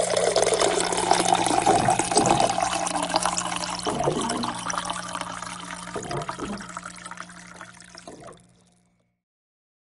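Rushing, gurgling water, loudest at the start and fading away over about eight seconds before it cuts to dead silence.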